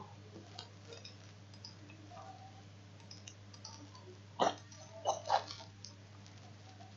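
Three sharp computer keyboard clicks, one just past four seconds in and two close together about a second later, over a faint steady electrical hum.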